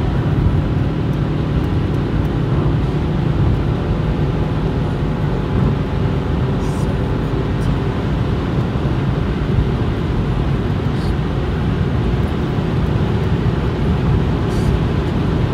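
Steady road and wind noise inside a car cruising on a motorway, mostly low-pitched, with a faint engine hum running through it.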